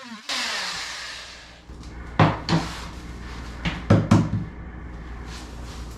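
A burst of hissing noise that dies away over about a second, then a handful of short knocks and thumps, typical of cut flooring pieces being handled and knocked loose.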